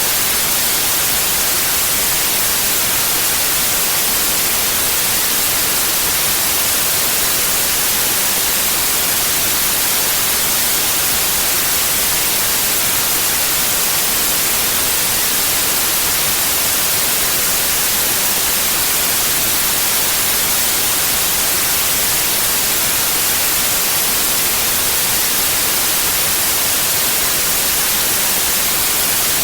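Steady white noise, an even hiss with no changes, loudest in the high range.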